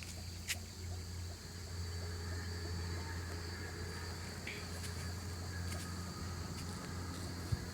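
Insects trilling steadily in a continuous high-pitched drone, over a steady low hum, with a few faint sharp clicks.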